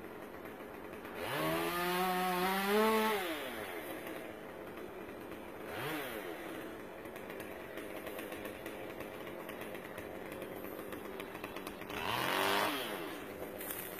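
Gas chainsaw idling between throttle bursts. It revs up about a second in and holds high for about two seconds before dropping back, blips briefly around six seconds, and revs again near the end.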